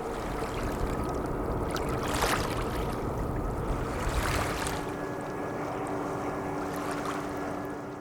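A boat's motor hums steadily while water splashes and sloshes, with a couple of louder surges of spray. The deep rumble drops away about halfway through.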